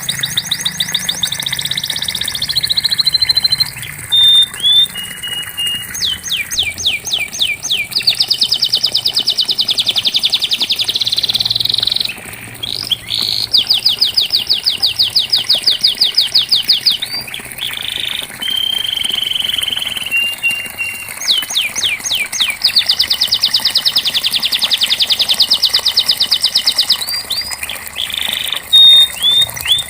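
Domestic canary singing in long phrases of fast, evenly repeated trilled notes, broken by short single chirps and brief pauses between phrases.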